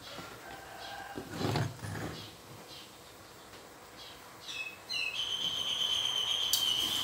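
A bird calling: a few quick high chirps about four and a half seconds in, then one steady high whistle held for about two and a half seconds. A soft knock about a second and a half in.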